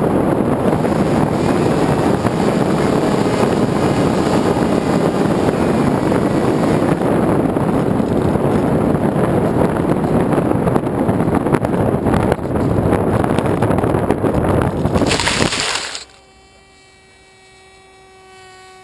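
Loud wind rushing over the onboard camera of a Skysurfer foam FPV plane flying low under electric-motor power. About 15 seconds in comes a brief loud rush as the plane comes down into dry grass, then the noise cuts off suddenly, leaving a faint steady electronic hum.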